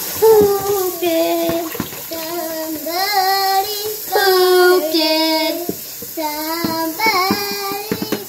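A young girl singing a tune in long held notes that slide up and down.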